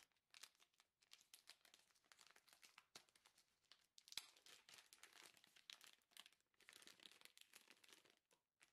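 Faint crinkling of a foil resealable pouch being handled and opened as a small spray bottle is taken out, with a few soft ticks, the sharpest about four seconds in.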